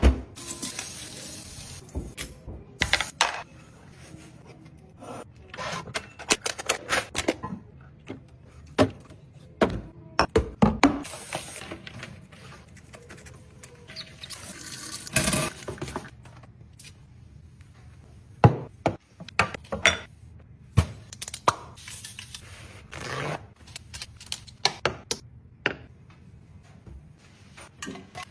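Household items being handled and set down while restocking: an irregular run of knocks, clinks and thunks as containers and packages meet shelves and each other, with short bursts of packaging rustle.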